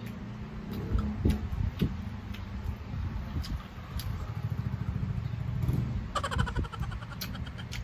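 Eating chicken feet: chewing and sucking on the bones, with scattered sharp clicks. A low rumble runs underneath, and a fast rattling run comes near the end.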